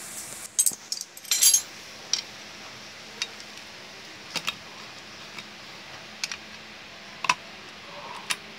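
Sharp metal clinks and taps as small steel parts are handled and fitted onto the valve stems of a diesel engine's cylinder head. They come in a quick cluster in the first second and a half, then as single clinks every second or two.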